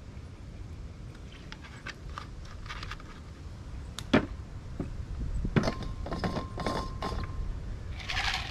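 Items being handled on a metal camp table: scattered light clicks and clinks, a sharp knock about four seconds in as a plastic bottle is set down, and a burst of clatter a second or two later. A short rushing hiss comes near the end, over a low steady rumble.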